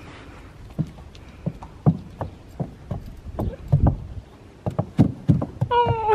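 A horse's hooves knocking and thudding on a wooden plank platform, one step at a time at an irregular pace. Near the end a drawn-out voice sets in, sliding slowly down in pitch.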